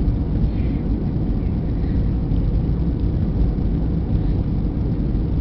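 Jet airliner cabin noise from a window seat during the descent to landing: a steady, deep rumble of engines and rushing air.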